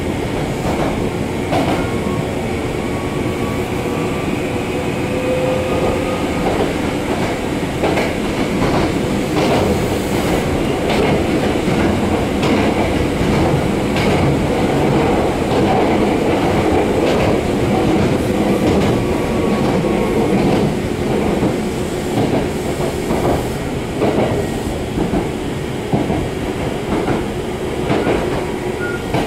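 A former Hankyu electric train running, heard from inside the car: a steady rumble of wheels on rail, clickety-clack of the rail joints, and a faint traction-motor whine.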